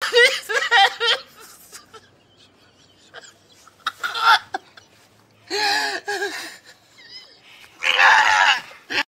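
A man sobbing and wailing in four loud, wavering bursts, with quieter gasping sobs between.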